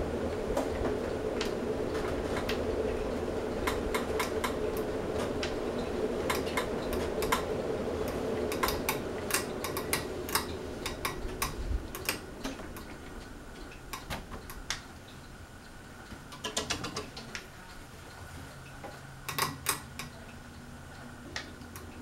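Hunter Silent Breeze ceiling fan running with a steady whoosh that drops lower about halfway through, with many light, irregular clicks and ticks over it.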